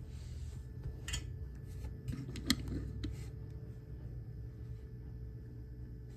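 A few light clicks and taps of handling, the loudest about two and a half seconds in, over a steady low hum.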